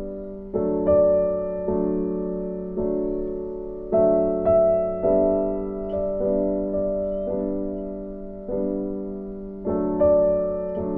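Background music of slow, gentle piano chords, a new chord struck about once a second and each ringing and fading away.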